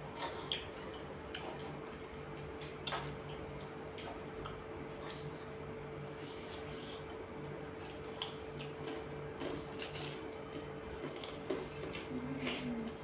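Close eating sounds of rice and curry eaten by hand: wet chewing, lip smacks and fingers squishing rice on steel plates, with a few sharp clicks scattered through. A steady low hum runs underneath.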